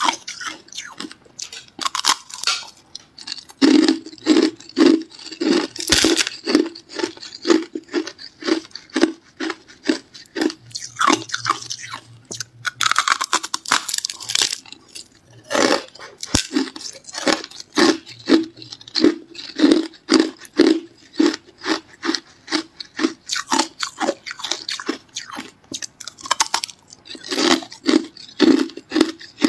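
Close-up crunching and chewing of hard ice: a person bites chunks off a frozen clump of small ice pieces and chews them, with crisp crunches about three times a second.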